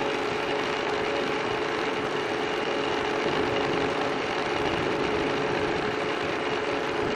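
Holtzapffel ornamental turning lathe running, its belt-driven universal cutting frame spinning against a wooden workpiece: a steady mechanical whir with a steady hum.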